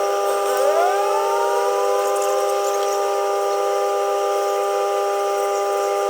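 Steady electronic drone of several held tones, with gliding pitch sweeps that fall and then rise in the first second.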